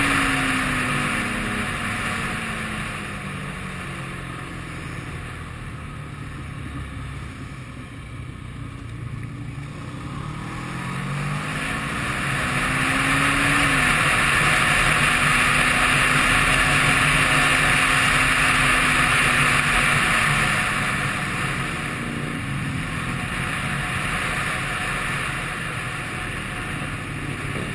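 Motorcycle engine heard on board under rushing wind: the engine note falls as the bike slows, climbs again about ten seconds in as it accelerates, holds steady while the wind rush is at its loudest, and drops again near the end.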